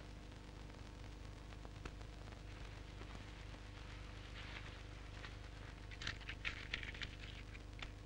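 Quiet old film soundtrack with a steady low hum. A short run of crackling and rustling comes about six seconds in.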